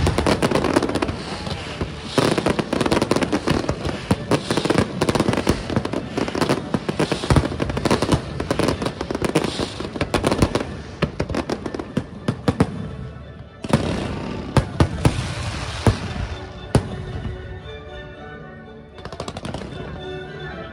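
Aerial fireworks bursting in rapid succession: sharp bangs and crackling salvos, densest through the first two-thirds, thinning out for a couple of seconds, then more bursts near the end.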